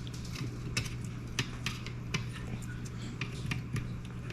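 Irregular light clicks and taps, about eight over a few seconds, from hand tools and small electronic parts being handled on a workbench, over a steady low electrical hum.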